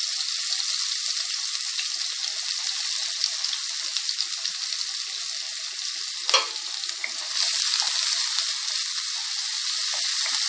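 Chopped onions sizzling and crackling in hot oil with cumin seeds in a nonstick kadai, with one sharp knock about six seconds in. The sizzle grows a little louder after about seven seconds as a wooden spatula stirs the onions.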